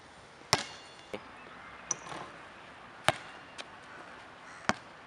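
About six sharp clicks at uneven intervals over a faint background hiss. The loudest come about half a second and three seconds in, and the first has a brief ringing tone after it.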